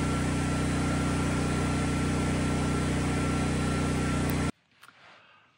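Steady machine hum and fan noise from an EG4 Chargeverter battery charger working at about 95 amps, close to its 100-amp rating, with a thin steady whine. It cuts off suddenly about four and a half seconds in.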